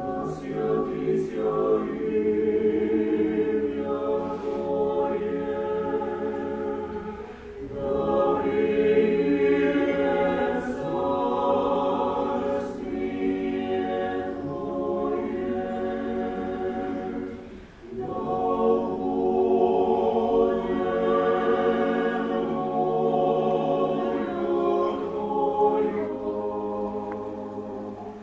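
Mixed choir of women's and men's voices singing Byzantine church chant a cappella, in long sustained phrases with two short breaks between phrases, the first about a quarter of the way in and the second about two-thirds of the way through.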